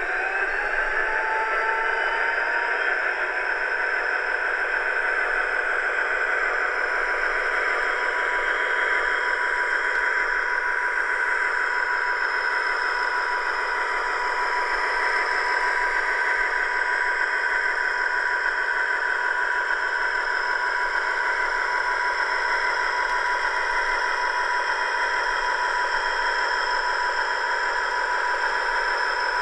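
Dapol 00 gauge Class 59 model's sound decoder playing a diesel locomotive engine through its small onboard speaker, thin and without bass. The engine note rises over the first two or three seconds, then runs steadily.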